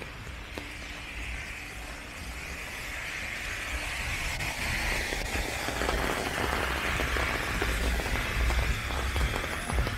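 Rain falling on an umbrella held overhead, many drops ticking on the canopy over a steady hiss of rain on wet pavement, growing denser and louder over the seconds.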